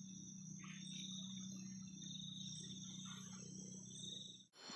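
Crickets trilling steadily and faintly, with a low steady hum underneath. The sound cuts out abruptly just before the end.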